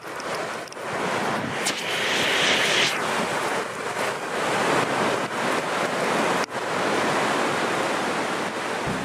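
Ocean surf washing onto a beach, with wind buffeting the microphone. The hiss swells for about a second a couple of seconds in, and it drops out sharply twice.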